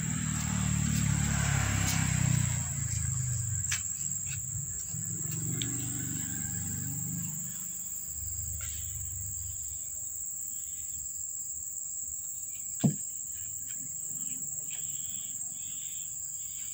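Steady high-pitched insect drone, like crickets, over outdoor background noise, with a low rumble during the first half. A single sharp click about thirteen seconds in.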